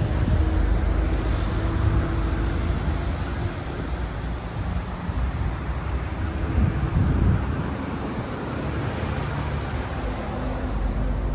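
Road traffic going by, with wind buffeting the microphone.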